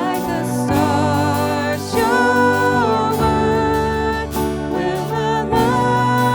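Contemporary Christian worship song: a singer holds long, wavering notes over a sustained instrumental accompaniment.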